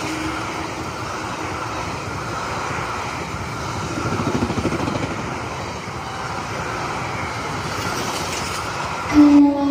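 Steady rushing noise, then a train horn sounds about nine seconds in: one loud, steady, pitched blast that carries on.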